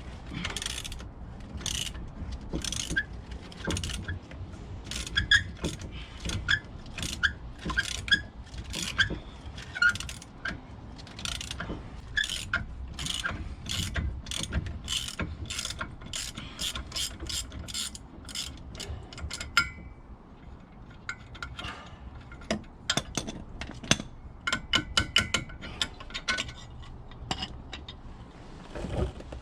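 Hand ratchet wrench clicking in repeated runs of sharp metallic ticks, a few per second, as bolts are worked loose. The clicking pauses briefly about two-thirds of the way through, then starts again.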